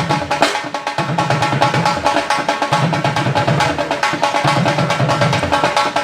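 Music: fast drumming with rapid strokes over a steady held melody, with a deeper drum beat coming in and out.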